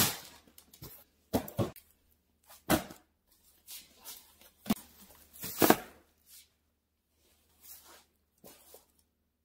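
A cardboard box and a gift bag being handled and set down: a handful of short knocks and rustles, the loudest about five and a half seconds in.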